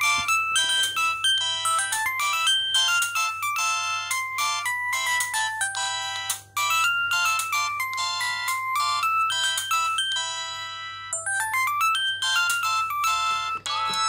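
Samsung SGH-X160 flip phone playing a polyphonic ringtone preview through its small speaker: a quick, bright synthesized melody. There is a brief break in the middle, and near the end a held chord gives way to a rising run of notes.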